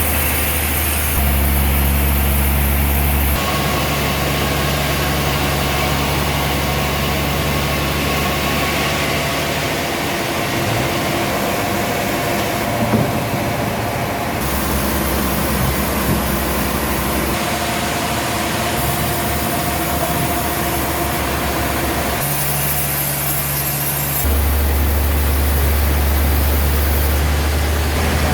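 Heavy machinery engines running steadily with a deep hum, the sound changing abruptly several times as one machine gives way to another.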